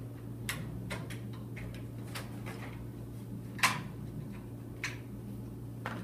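Scattered light metallic clicks and taps, with one sharper click about three and a half seconds in, as a small screwdriver depresses and works out the spring-tension pin on the spindle of a retractable banner stand's aluminium base.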